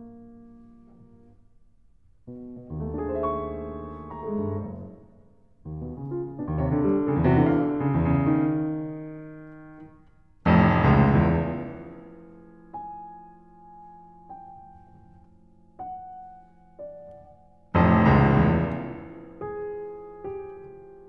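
Slow background piano music: chords and single notes struck and left to ring away, with the two loudest chords about halfway through and near the end.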